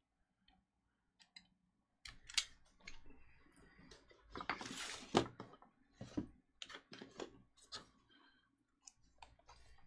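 Clicks of a snap-off utility knife's blade slider, mixed with a sealed cardboard trading card box being handled and slid across a mat. There is a longer scraping rustle about halfway through.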